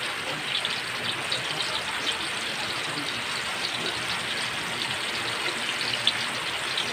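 Eggplant omelette frying in hot oil in a wok: a steady sizzle with small crackling pops, and one sharp tick near the end.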